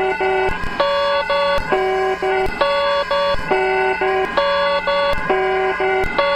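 Electronic emergency-alert alarm tone: a short pattern of three or four beeping notes at different pitches, repeated about every 0.9 seconds over a steady low hum.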